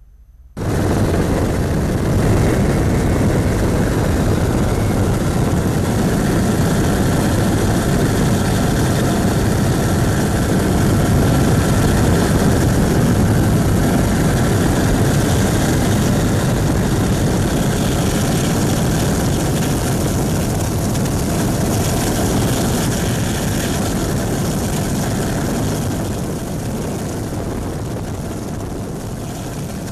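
Steady engine and airflow noise of an aircraft in flight, heard from on board, easing off a little near the end.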